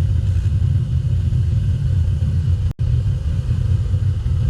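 High-output burner firing on propane into a reverberatory melting furnace: a loud, steady low roar. It cuts out for an instant just under three seconds in, then carries on.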